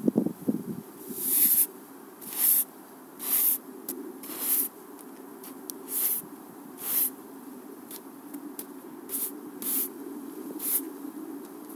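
A stiff push broom sweeping snow off a road surface: about a dozen swishes of the bristles, roughly one a second, over a steady low hum. At the start there are a few heavier crunching footsteps in the snow.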